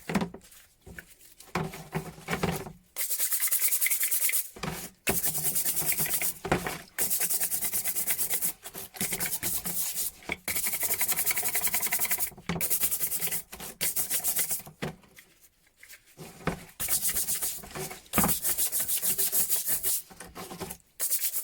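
Hand abrasive rubbing on a steel wrench: a run of scraping strokes a second or two long with short pauses between them.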